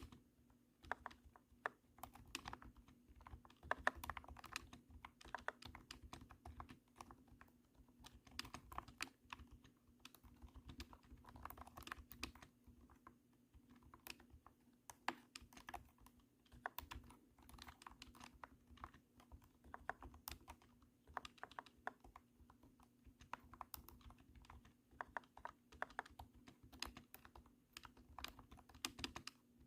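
Typing on a cat-shaped keyboard: thunky keystrokes in quick, uneven runs broken by short pauses.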